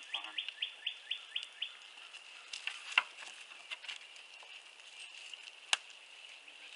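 A songbird sings a quick series of down-slurred chirps, about four a second, which stops within the first two seconds, over a steady high drone. Two sharp clicks stand out, one about three seconds in and another near the end.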